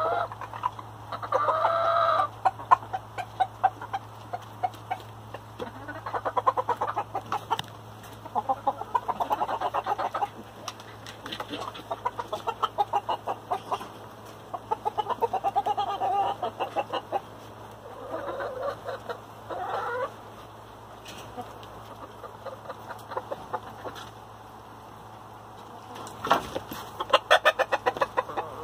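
Hens and roosters clucking in a string of short, rapid, rattling bursts, with one brief higher-pitched call about a second in.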